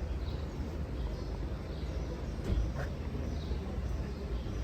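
Outdoor street ambience: a steady low rumble with faint bird chirps now and then. The rumble cuts off suddenly at the end.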